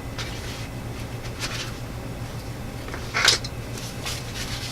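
A few brief rustles and scrapes of gear being handled, the loudest about three seconds in, over a steady low hum.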